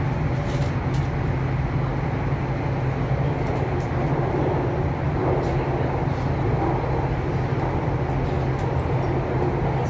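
Subway train running, heard from inside the car: a steady low hum under a constant rolling rumble, with a few faint clicks.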